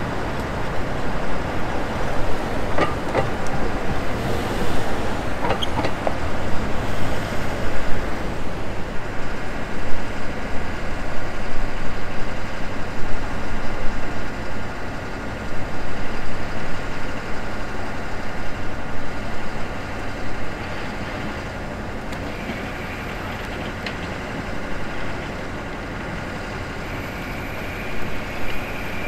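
City street traffic: vehicles passing, busier and louder through the first half, then settling to a steadier, quieter hum.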